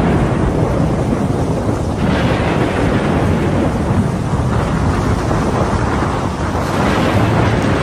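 Thunderstorm: strong wind rushing over the microphone with low rumbling thunder, a loud continuous noise that swells a little about two seconds in and again near the end.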